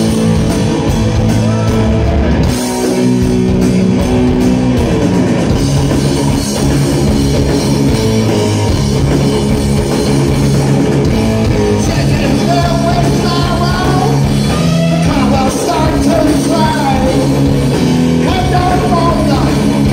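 Live heavy metal band playing loudly: distorted electric guitar, bass and drum kit, with a singer's voice over the riff.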